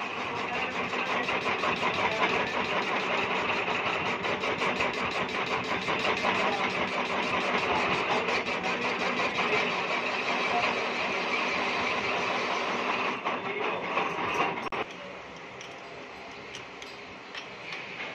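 Metal lathe turning a three-cylinder engine crankshaft, the tool cutting the spinning crank with a dense, fast rhythmic clatter. About 15 s in it drops to a quieter run with a few light clicks.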